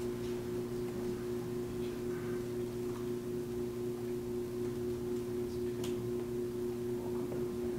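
Steady low hum of a few even pitched tones, with a faint click or two.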